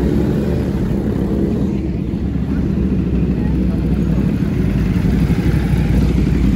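Big motorcycle engines running steadily, with no sharp revs, under the chatter of voices.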